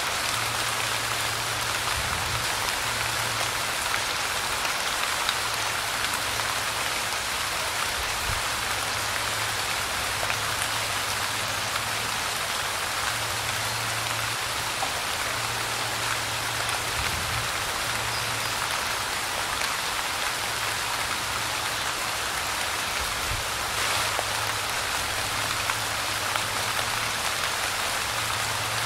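Light rain falling steadily, an even patter with faint scattered drop ticks. A low hum comes and goes underneath every few seconds.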